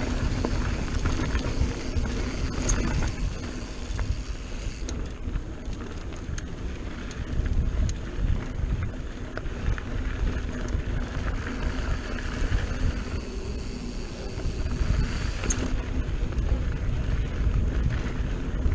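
Mountain bike rolling down dirt singletrack: wind buffeting the bike-mounted camera's microphone over a steady low rumble of tyres on the trail, with occasional sharp clicks and rattles from the bike.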